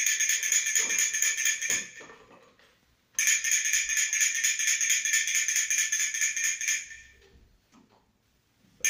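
A small jingling rattle toy shaken in bursts: about two seconds of bright jingling that trails off, a pause, then about four seconds more that trails off again, starting once more at the very end. It is sounded as a hearing stimulus for a toddler whose first cochlear implant has just been switched on.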